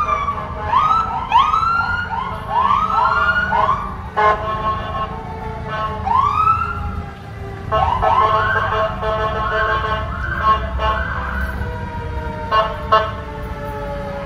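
Ambulance siren sounding in short, quickly rising whoops, many in a row in bursts, as the ambulance passes close by. Short horn blasts about four seconds in and twice near the end, and a long tone slowly falling in pitch over the last few seconds.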